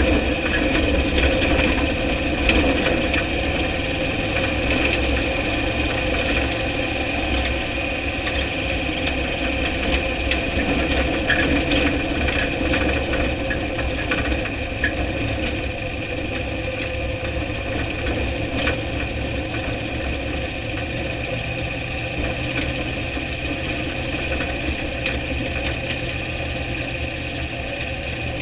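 Dirt-track race car's engine running steadily with little change in pitch, heard from inside the car's cockpit.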